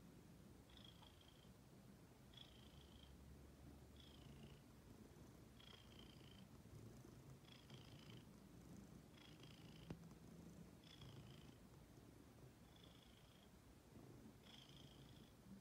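Domestic ginger cat purring faintly, in a slow rhythm that swells about every second and a half to two seconds.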